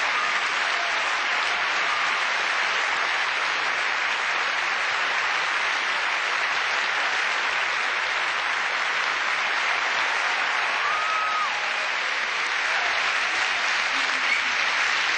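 A large live audience applauding, a steady, unbroken clapping that keeps on.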